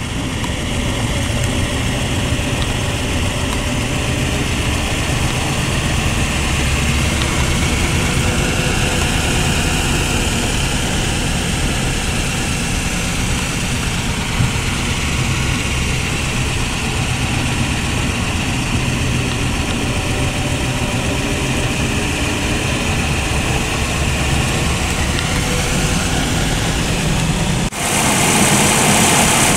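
The 8.1-litre aluminium V16 engine of a 1932 Marmon Sixteen running steadily as the car is driven slowly, heard from inside the cabin. Near the end the sound cuts to the outside of the moving car, where wind and road hiss are much stronger.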